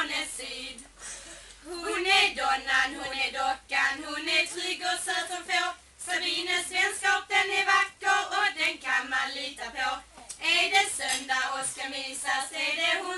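A small group of women singing a song together in phrases with brief pauses between them.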